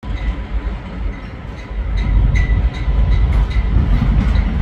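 Freight train of empty coal cars rolling past with a heavy low rumble. Wheels click repeatedly over the rail joints, and a faint steady high tone runs under it.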